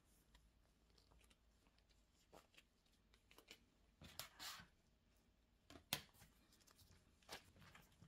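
Faint, short sticky sounds of soft, wet bread dough being stretched and pressed by gloved hands on a work surface, a few scattered through the quiet, the sharpest about six seconds in.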